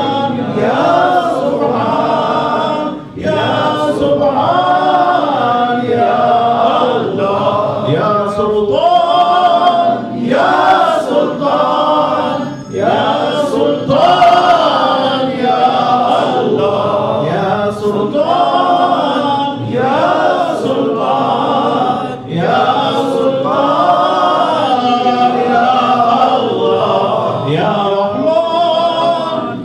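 Men's voices chanting together in a melodic Sufi dhikr, a sustained devotional chant with only brief breaths between phrases.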